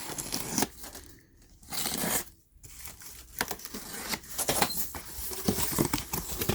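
A shipping box being opened: packaging tearing and crinkling in a few short bursts, then a run of rustling with many small clicks and knocks in the second half.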